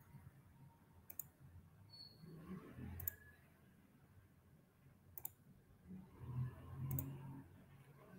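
Computer mouse clicking while a PowerPoint presentation is opened: four sharp, quiet clicks about two seconds apart, with a faint low noise under the later two.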